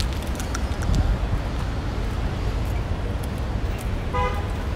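Wind rumbling on the microphone over city road traffic, with a brief pitched tone about four seconds in.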